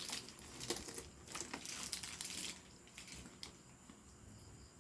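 Rustling and crinkling handling noise with a few sharp crackles as a leather bag is turned over in the hands, dying down after about two and a half seconds.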